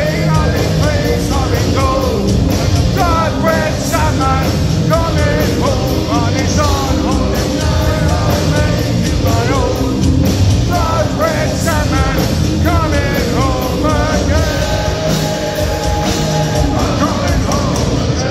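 Live hard rock band playing loudly, with a lead vocal over distorted guitars, bass and steady drums.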